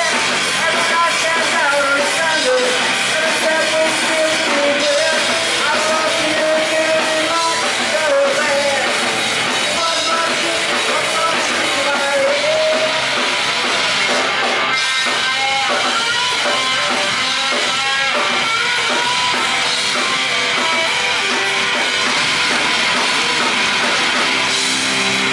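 A rock band playing live and loud: electric guitar and drum kit.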